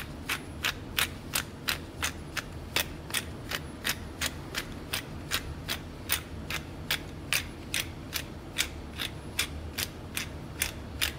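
Hand pepper mill grinding black pepper, a steady run of crisp ratcheting clicks about three a second.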